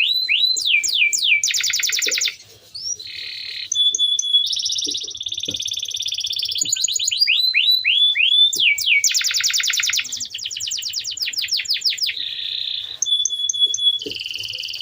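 Male domestic canary singing a rolling song of fast trills, repeated downward-sweeping notes and short held whistles, with a brief lull about two seconds in.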